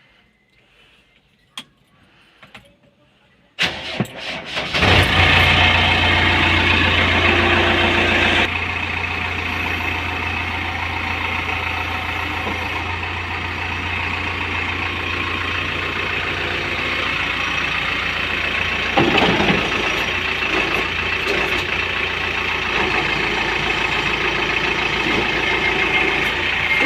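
JCB 3DX backhoe loader's diesel engine starting after a few clicks about four seconds in, running louder for a few seconds, then settling to a steady run.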